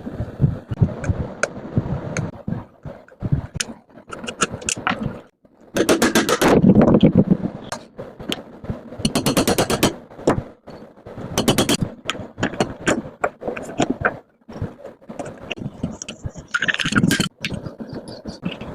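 Bearing replacement work: many sharp metal knocks and scrapes, with several rapid runs of quick strikes.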